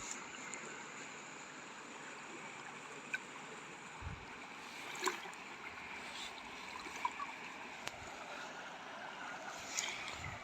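Shallow forest river flowing and trickling steadily over stones, with a few faint clicks.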